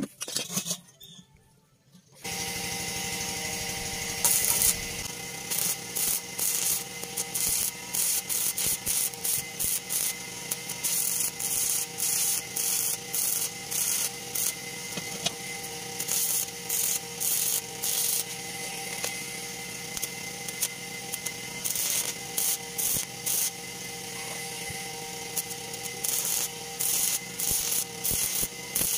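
Stick (arc) welder burning a rod against the steel gas bottle: a steady crackling sizzle that sets in about two seconds in, broken by frequent louder spits and pops.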